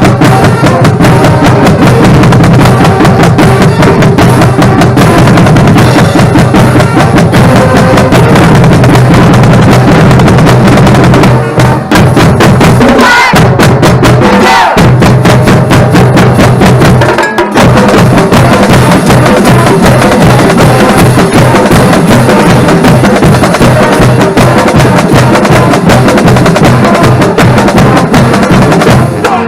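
Marching drumline playing loud, with snare and bass drums in a dense, fast rhythm. There are two short breaks, about 12 and 17 seconds in.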